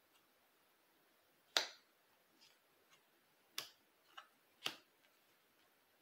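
Tarot cards being laid down one by one on a cloth-covered table: three sharp taps, the loudest about a second and a half in, with a few fainter card sounds between them.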